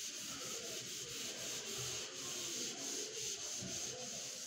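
A yellow eraser block scrubbing a whiteboard clean: a steady rubbing hiss made of quick, even back-and-forth strokes.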